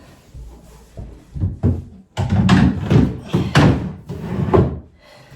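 Drawer being pushed into a flat-pack chest-of-drawers frame: a run of knocks, bumps and scrapes, loudest from about two seconds in, as it is worked into place.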